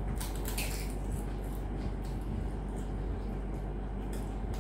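A mouthful of crisp pani puri being crunched and chewed: a cluster of sharp crackles in the first second, then smaller ones scattered after, over a steady low hum.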